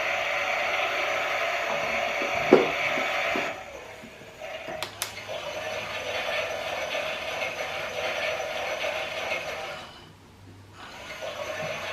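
Small battery motor of a Klein toy Miele washing machine running steadily. It stops about a third of the way in, with a sharp click and then a couple of lighter clicks, starts again, cuts out briefly near the end and starts once more.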